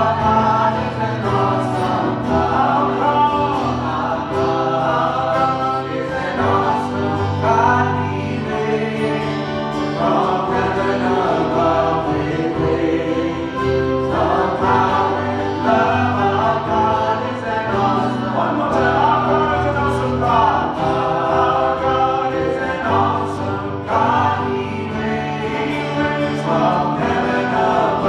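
Gospel-style worship song: several voices singing together over sustained instrumental accompaniment with a steady bass.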